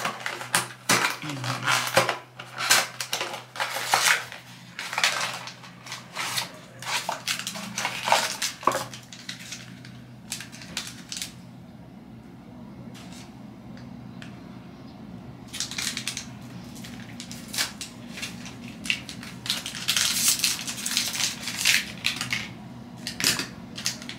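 Pregnancy test packaging being opened: a cardboard box and the test's plastic wrapper crinkled, rustled and torn, a dense run of crackles for the first ten seconds or so, a lull, then more crinkling over the last third.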